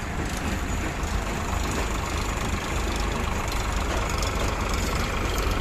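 Heavy diesel engine running steadily with an even low rumble.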